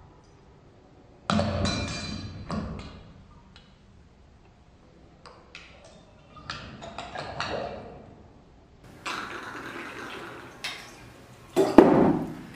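A bottle and a metal jigger handled in a flair pouring move: several knocks and clinks about a second in, then a steady stretch of liquid pouring into a metal jigger over a steel shaker tin for about two seconds, followed by a sharp knock near the end.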